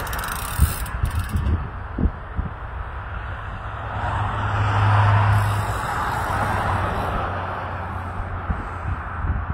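An electric unicycle (MSX Pro, with a hub motor) rolling over the asphalt of a pump track: tyre noise and a low hum that swell as it passes close, loudest about five seconds in. A few sharp clicks and knocks come in the first two seconds.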